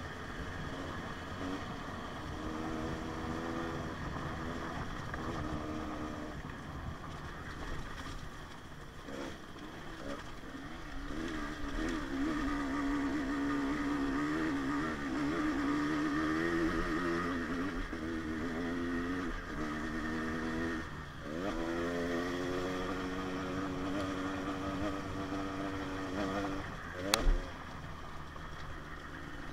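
Two-stroke KTM 150 XC-W dirt bike engine running on the trail, its pitch rising and falling as the throttle is opened and eased off again and again, over wind and trail noise. A single sharp knock near the end is the loudest moment.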